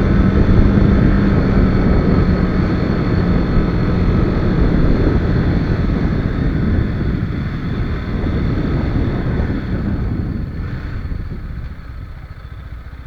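Riding a TVS Apache RR 310, with its 312 cc single-cylinder engine running under heavy wind rush on the microphone. The noise dies down noticeably near the end as the bike slows.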